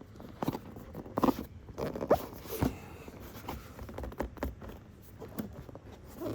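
Cardboard box and packaging being handled and opened by hand: scattered clicks, taps and short rustling scrapes, with a few brief murmurs in between.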